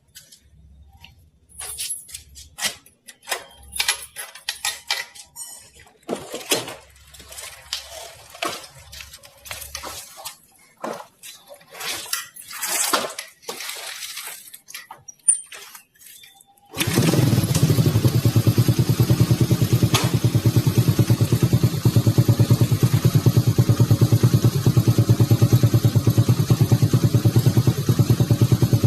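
Scattered clicks and knocks, then about 17 seconds in a Honda Supra Fit's small single-cylinder four-stroke engine starts abruptly and runs steadily with an even, fast pulse.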